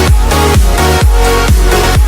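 Electronic dance music with a steady four-on-the-floor kick drum, about two beats a second, under sustained synth chords.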